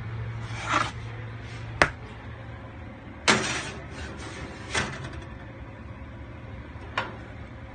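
A metal cake pan is slid onto an oven's wire rack, with several sharp knocks and clanks of pan, rack and oven door, the loudest about three seconds in, over a steady low hum.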